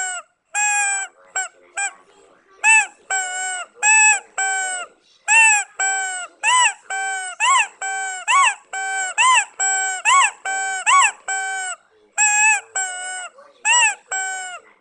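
A chicken squawking in distress: a long run of short, loud, pitched cries, about two a second, some rising and falling in pitch, with brief pauses between groups.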